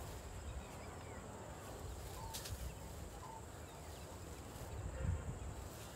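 Asian elephant grazing, its trunk tearing at dry grass in a few brief rips and snaps about two and five seconds in, over a low outdoor rumble with faint bird chirps.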